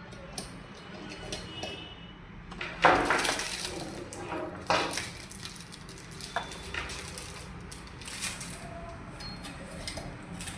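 Small parts being handled: the cable-management clips for a dual monitor stand, with scattered clicks and knocks and two louder rustling bursts, about three seconds in and again near five seconds.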